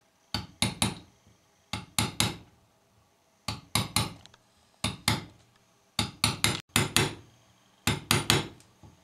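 Small hammer tapping a thin punch against the thin metal rim of a VDO speedometer housing, in short clusters of about three light, ringing taps with pauses between. The taps are crimping the housing edge back over the bezel ring to close the instrument up again.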